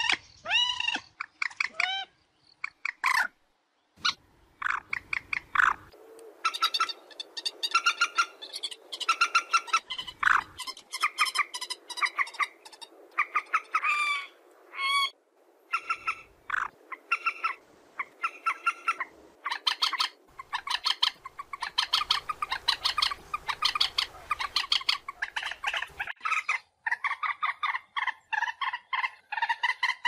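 Common moorhen calling: short, pitched notes given in quick runs, with brief pauses between the runs.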